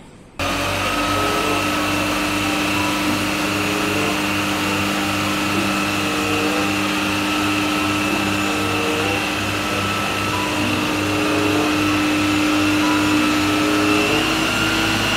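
Isuzu FVZ water tanker truck's diesel engine running hard to drive its water pump while the roof water cannon throws a jet, a steady mechanical drone with a faint regular low throb. It cuts in abruptly about half a second in.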